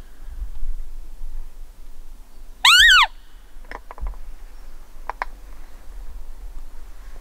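A Clausen roe deer call is blown once, about two and a half seconds in: a short, high squeak that rises and falls. It imitates a roe doe's contact call to lure a buck during the rut. A few faint short ticks follow.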